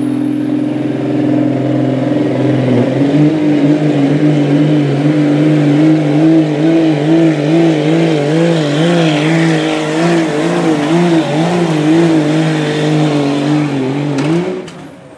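Diesel pickup truck engine at full throttle pulling a sled, with a high turbo whistle rising at first. About three seconds in the engine pitch steps up, then wavers up and down repeatedly as the truck pulls. Near the end it rises briefly and is cut off suddenly as the run ends.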